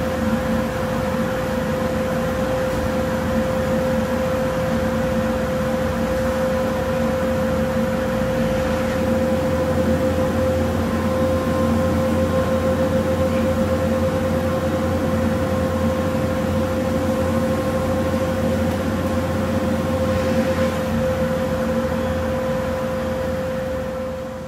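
Shop cyclone dust collector running, a steady roar of rushing air with a steady whine in it, fading out near the end.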